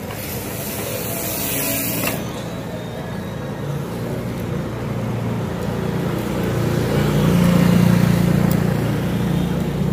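Road traffic: a motor vehicle's engine rumbles as it approaches and passes close, loudest about eight seconds in. A hiss is heard over the first two seconds.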